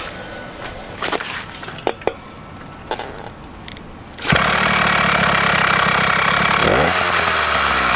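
A few light knocks and clicks, then a two-stroke motorized-bicycle kit engine starts abruptly about four seconds in and runs loudly and steadily, revving up near the end.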